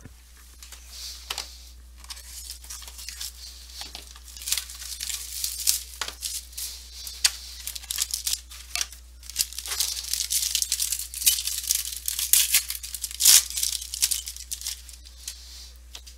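Hands tearing and crinkling the plastic wrapping off a sealed trading-card box and working the box open: irregular ripping and crinkling with sharp clicks. It gets busier from about four seconds in.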